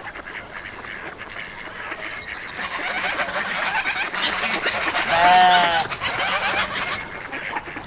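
Farmyard sounds: birds chattering and calling, then one loud, drawn-out farm animal call about five seconds in.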